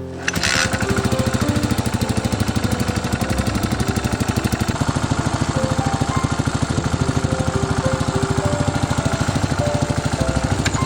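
Yamaha SR400's single-cylinder engine idling, a steady, fast thudding of exhaust pulses that comes in suddenly just after the start.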